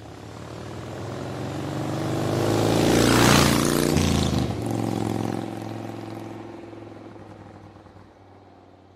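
Logo sting sound effect: a whoosh that swells to a loud peak about three seconds in, then slowly fades, over a steady low drone.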